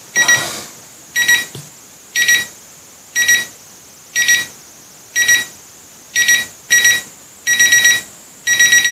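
Digital alarm clock going off: short high electronic beeps, about one a second at first, then coming in pairs and longer rapid runs near the end as the alarm escalates.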